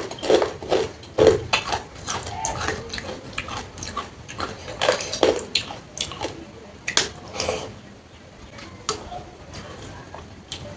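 Close-up sounds of eating a meal of water-soaked rice (panta bhat): wet chewing and lip-smacking with sharp mouth clicks. There are louder bursts at the very start and again a little past the middle.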